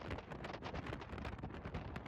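Wind buffeting the microphone: an uneven, gusting rumble of noise.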